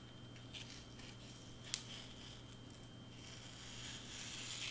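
Craft knife blade drawing through foam board: faint scratchy cutting, with one sharp click about two seconds in, and the scraping growing louder near the end.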